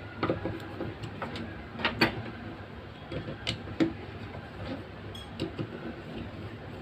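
Irregular clicks and knocks of small plastic trimmer parts being handled and fitted together, over a faint steady low hum.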